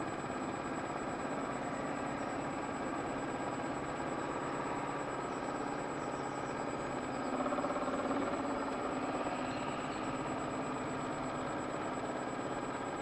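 RC model boat's drive motor running steadily, heard from on board the hull as a mechanical hum with a thin high whine, rising slightly about seven to eight seconds in.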